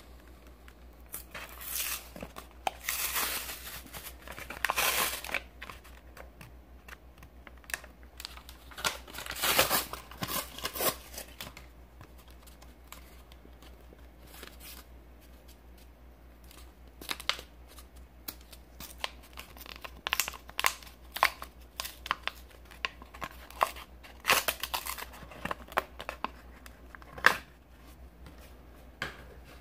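Pokémon card packaging, a cardboard-backed plastic blister pack, being torn open and crinkled by hand in irregular bursts, with quieter stretches between and a few sharp clicks.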